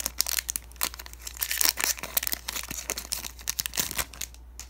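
Foil wrapper of a Pokémon trading card booster pack crinkling and tearing as it is torn open by hand: quick, irregular crackles that die down near the end.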